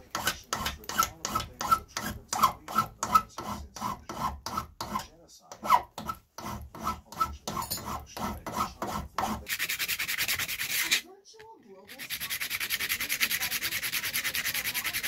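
Hand file worked over a small piece clamped in a bench vise: steady rasping strokes, about three a second, each with a light ring, with a short pause about six seconds in. Near the end it changes to a small piece being rubbed quickly back and forth on a sheet of sandpaper, a fast even scratching hiss.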